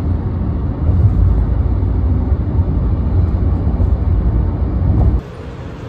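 Steady low rumble of road and wind noise from a vehicle travelling at highway speed, which cuts off abruptly about five seconds in.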